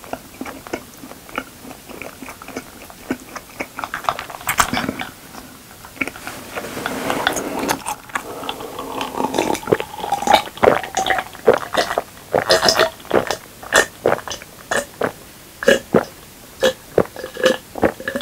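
Close-miked mouth sounds: soft chewing clicks at first, then, from about halfway, a person gulping an iced dark drink from a glass jar, about two swallows a second.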